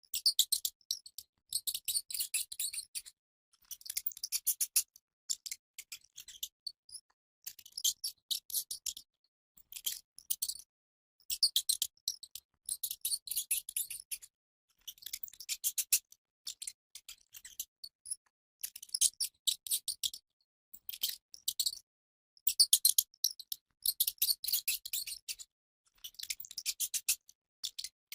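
Rat squeaking: rapid trains of short, high-pitched squeaks in bouts of a second or two, with brief pauses between them.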